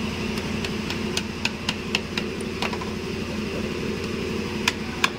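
Hammer tapping a screwdriver into the seam of a Mercedes-Benz ML 350 transfer case to split the case halves apart: about ten light, sharp taps at uneven intervals, most in the first three seconds and two near the end, over a steady low hum.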